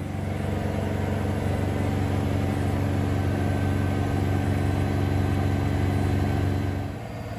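Bosch Serie 4 front-loading washing machine on its final spin at the full 1400 RPM, giving a steady low hum. The hum drops in level near the end.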